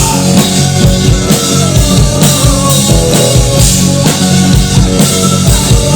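Live rock band playing an instrumental passage of the song: a drum kit keeps a steady bass-drum beat under sustained bass and instrument chords, without vocals.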